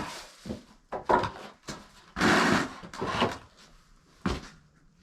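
A few separate wooden knocks and short scraping sounds as a wooden board is handled, with quiet gaps between them.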